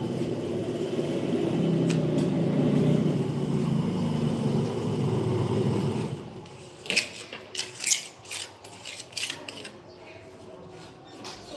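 A low engine rumble swells and fades out about six seconds in. It is followed by a run of sharp scrapes and taps of a steel trowel working mortar against a cement corbel ornament.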